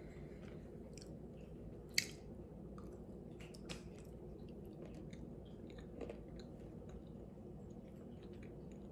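A person chewing a soft homemade date bar: faint, irregular small clicks and squishes of the mouth, with one sharper click about two seconds in.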